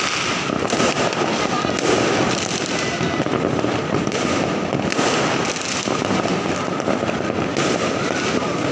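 Fireworks and firecrackers going off all over at once: a dense, unbroken crackle of many overlapping pops and bangs.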